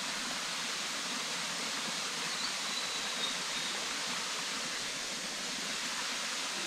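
A waterfall's steady rush of falling water, an even hiss with no breaks.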